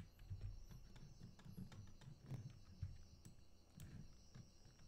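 Near silence: faint room hum with a few scattered, faint clicks.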